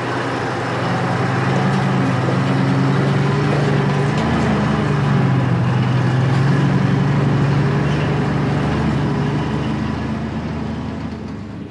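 Heavy truck engine running steadily in low gear, its pitch shifting a little. It grows louder towards the middle and fades near the end, as if the lorry passes by.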